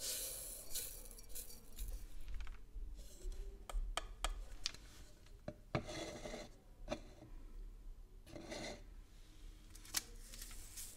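Plastic bottles of powdered Chinese herbs being handled up close, with herbs shaken and spooned into a glass bowl. It is an irregular run of scraping, rubbing and light tapping with sharp clicks, the loudest about six seconds and ten seconds in.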